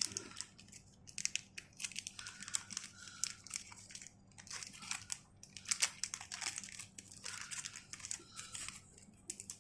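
Thin plastic wrapping crinkling in quick, irregular crackles as a small toy accessory is pulled out of it.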